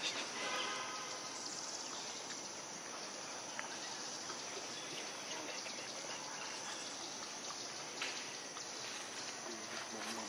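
Steady outdoor forest ambience, mainly the continuous high buzz and chirr of insects, with a brief high-pitched call in the first second and a few faint ticks.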